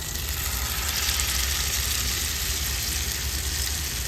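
Masala-marinated fish frying in hot oil in a pan, a steady sizzle over a low steady hum.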